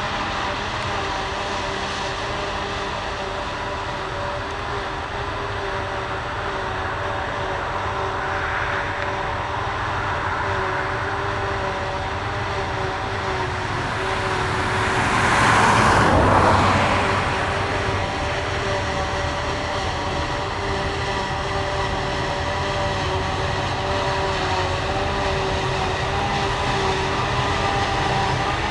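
Silage harvesting machinery working: a forage harvester and tractors run steadily with a constant mechanical whine over engine noise. About halfway through the sound grows louder to a peak and falls back again.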